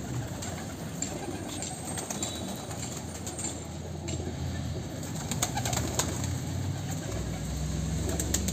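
A flock of domestic pigeons cooing in a loft, a low steady murmur of calls that grows stronger near the end, with a few sharp clicks.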